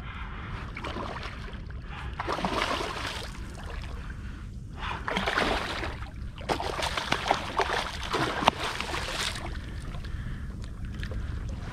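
Water splashing alongside a kayak in several noisy bursts, the longest in the second half, over a steady low rumble.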